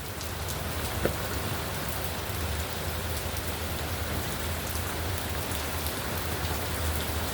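Rain falling steadily from a severe thunderstorm, with a single sharp tick about a second in.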